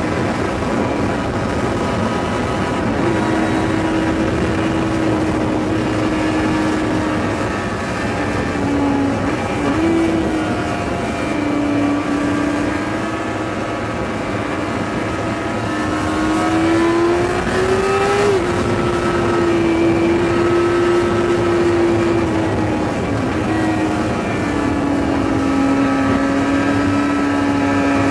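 Yamaha R6's 600 cc inline-four engine at high revs, heard from on board at racing speed. Its pitch climbs under throttle and drops in steps with the gear changes, over steady wind noise.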